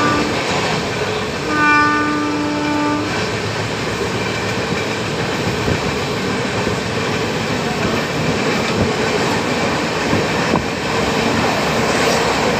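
Moving passenger train running on the rails, a steady rush of wheel and track noise. A train horn sounds once, at a steady pitch, from about a second and a half in for about a second and a half.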